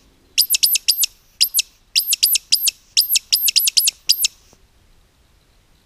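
Woodcock caller blown in quick clusters of sharp, high squeaks, about fourteen in four seconds, imitating the roding woodcock's 'tsiwick' call to lure a bird in.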